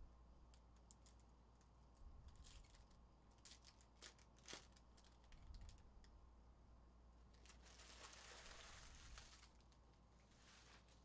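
Faint crinkling and tearing of foil trading-card pack wrappers (Panini Prizm hobby packs) being opened, with light scattered clicks of cards being handled. A longer crinkling rustle comes about three-quarters of the way through.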